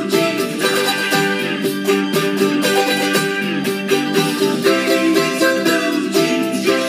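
Mandolin strummed steadily, a quick run of strokes through a chord pattern.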